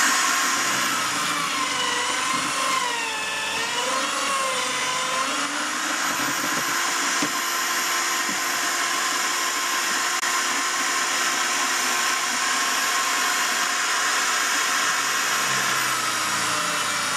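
Corded electric drill in a drill-press stand running continuously, its 6.5 mm bit boring through a timber wagon frame. The motor's whine wavers in pitch a couple of seconds in, then holds steady.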